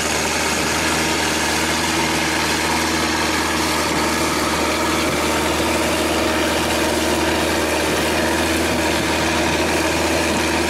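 Longtail boat's engine running steadily while the boat cruises, an even drone that does not change speed, over a hiss of water and wind.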